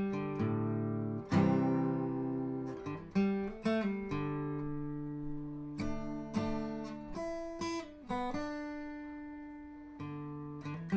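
Background music on acoustic guitar: plucked notes and strummed chords, each ringing out and fading.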